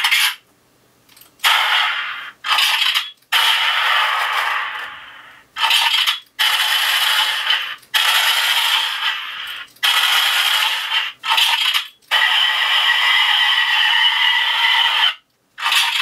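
Recorded gunshot sound effects played by the Arduino sound board of a homemade E-11 blaster prop through its small built-in speaker, with no bass. There are about ten shots at uneven intervals, several ringing on for a second or more.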